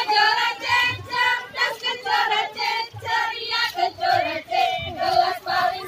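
A group of women singing a team cheer song together in short, rhythmic phrases.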